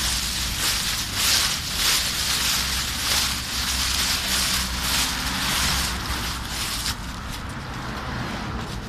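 Dry fallen leaves rustling and crunching under the footsteps of a walker and a large dog, in quick uneven pulses. About seven seconds in it drops quieter as the steps move toward the path's edge.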